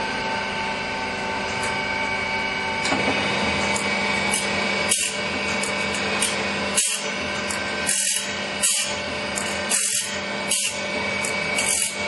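Electric grinding machine running with a steady motor hum. From about four seconds in, its wheel grinds in short, regular hissing strokes, a little more than one a second.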